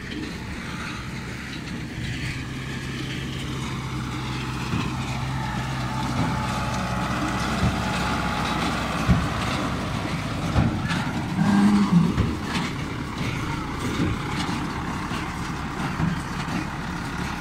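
New Holland TD95 tractor engine running steadily while it pulls a working CLAAS Quadrant 2200 large square baler through windrowed grass, with the baler's mechanical clatter on top. It grows louder over the first several seconds as the machines come close, with a few sharp knocks a little past the middle.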